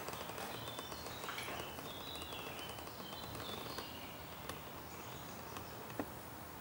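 Faint room tone with a few short, high chirps in the first half and a couple of light clicks later.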